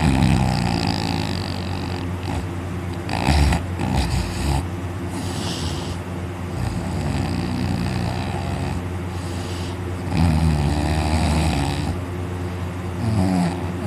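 A man snoring loudly in deep sleep, lying on his back with his mouth wide open. Several snores come through, the longest and loudest about ten seconds in.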